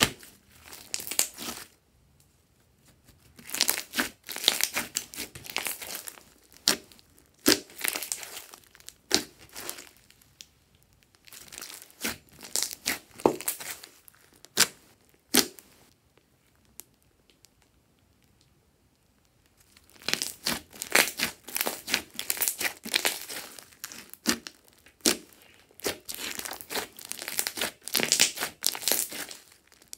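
Glossy slime being squeezed and kneaded by hand: sticky crackling and clicking in bursts, broken by short pauses and a quiet spell of a few seconds just past the halfway point.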